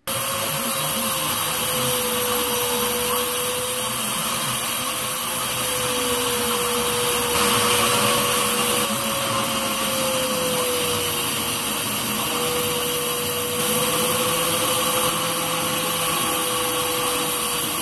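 Handheld angle grinder with a cut-off wheel cutting through steel go-kart frame tubing: a loud, continuous whine over a harsh grinding hiss, wavering slightly in pitch.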